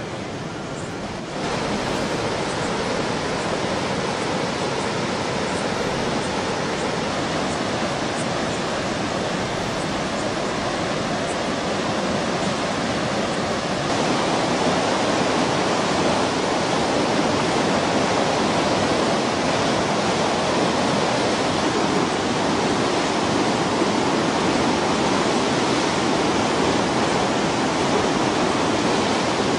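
Fast-flowing floodwater rushing in a steady, dense wash from a river in spate running over a road, louder from about halfway through.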